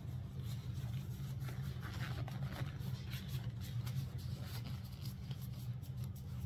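Soft rustling and handling noises, with a steady low hum underneath.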